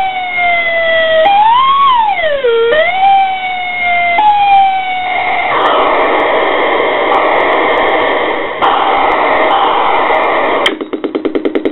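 MFOS Noise Toaster analog synthesizer played through a guitar amp, its knobs being turned. A pitched electronic tone slides downward, swoops low and back up about two seconds in, and jumps in pitch. From about halfway it turns into a gritty, noisy drone, which switches to a fast pulsing stutter near the end.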